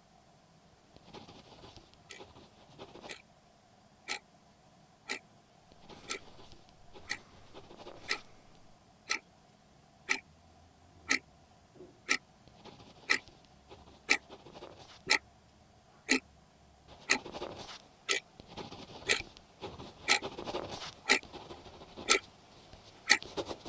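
A clock ticking once a second, the ticks growing louder toward the end, over pens scratching on paper during a timed exam.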